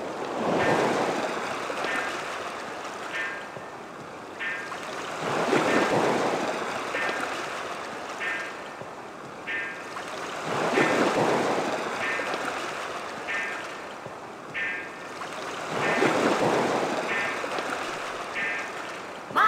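Ocean surf, with broad rushing swells of waves washing in about every five seconds. A faint short tone repeats about every second and a quarter between them.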